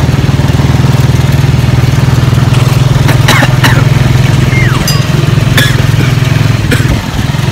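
Motorcycle engine of a tricycle (motorcycle with sidecar) running steadily, heard from inside the sidecar as a loud low hum, with a few short rattles and clicks.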